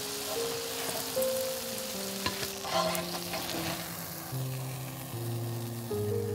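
Hot oil sizzling under potato cakes frying in a non-stick pan, with a few short scrapes of a plastic spatula against the pan about two to three seconds in. The sizzle is strongest in the first few seconds and eases toward the end.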